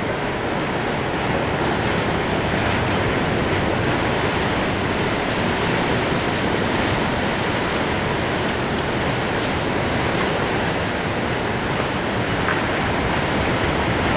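Heavy storm surf breaking on the shore, a steady, dense rush of water noise mixed with wind on the microphone.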